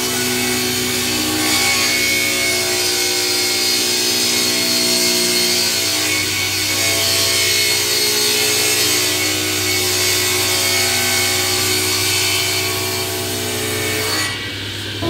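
Sliding-table panel saw running and ripping a wooden board: a steady motor and blade hum under the rasping noise of the cut. The level dips briefly near the end.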